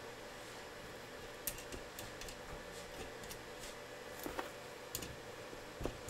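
Faint, scattered light clicks and taps of small metal and plastic parts being handled around a CPU socket, as a CPU cooler's retention clip is worked off, over a faint steady hum.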